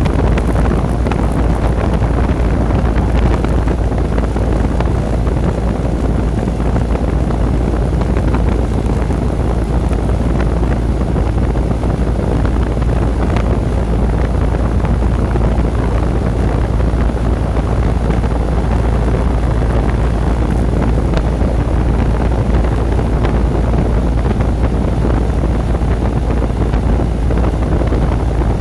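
Lennox package heat pump running in cool mode: a steady whoosh of the outdoor fan over the hum of the running compressor, with a heavy rumble of air buffeting the microphone.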